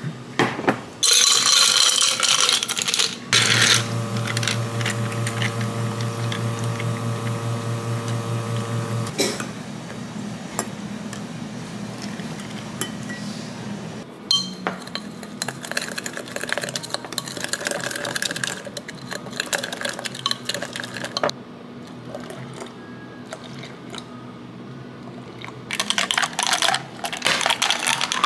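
Dishes and utensils clattering, with a small appliance motor humming steadily for about six seconds after a short rush of noise near the start. Background music plays throughout.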